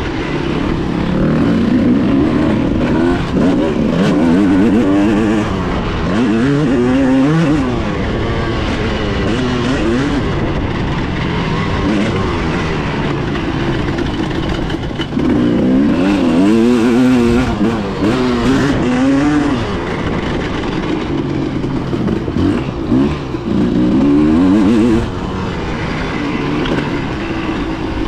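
Older enduro motorcycle engine under way on a dirt track, its pitch climbing and falling again and again as the throttle is opened and closed through the corners and gears.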